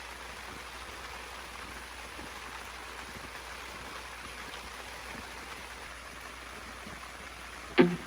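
Steady rain falling, an even hiss without change. Right at the end a sudden loud sound cuts in.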